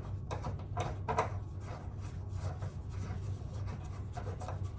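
Light rubbing and small knocks of wooden parts being handled, over a steady low hum.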